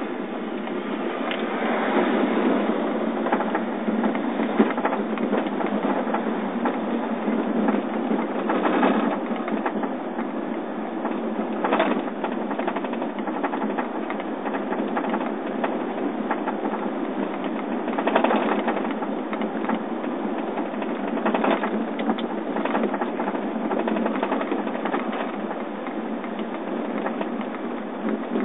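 Steady road and engine noise inside a moving car's cabin on a wet road, with a few brief louder swells.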